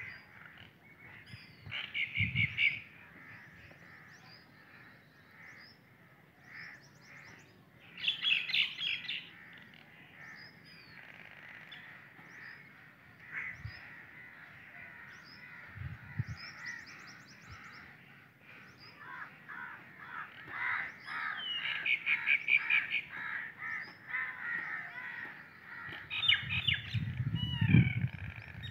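Birds calling in the open: a steady background of small chirps, broken by several louder bursts of quickly repeated calls. A few low thumps fall in between, the loudest near the end.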